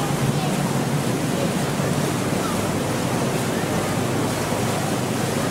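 Steady noise of a canal tour boat under way: water rushing along the hull over a low, even engine drone, with wind on the microphone.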